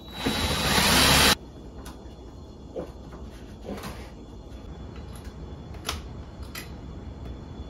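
Cordless drill running for about a second, speeding up as it drives a screw into the dishwasher's mounting bracket, then stopping abruptly. A few light clicks and knocks follow.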